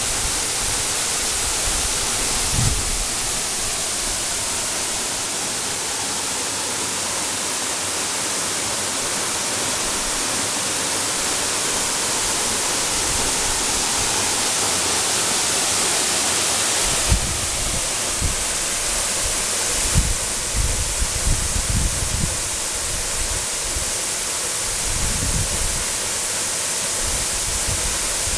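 Steady rushing of a roughly 30 m waterfall plunging into its pool: a dense, even hiss, strongest in the high range. A few brief low thumps hit the microphone, once early and several times in the second half.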